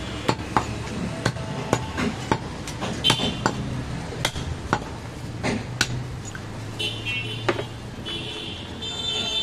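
Cleaver chopping goat meat on a wooden log chopping block: a run of sharp chops at an uneven pace, about two a second.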